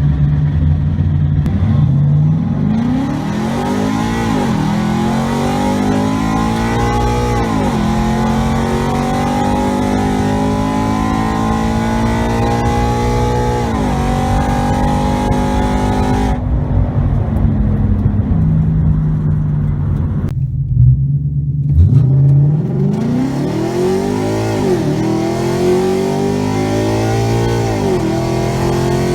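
Ford Mustang's 5.0 Coyote V8 with its mufflers deleted, pulling hard through the gears: engine pitch climbs and drops back at each upshift, several times. Past the middle it lifts off briefly, then climbs again.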